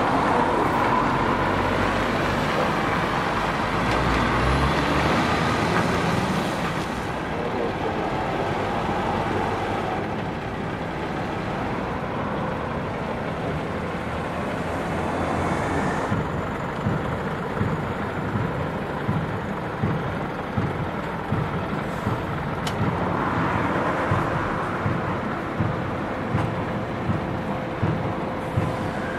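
Heavy recovery truck's diesel engine running, louder over the first several seconds as the truck moves, then lower and steady. Near the end, a regular low thumping sounds about once a second.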